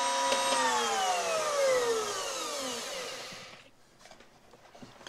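Electric router's motor spinning down after being switched off. A steady whine begins falling in pitch about half a second in and dies away over about three seconds.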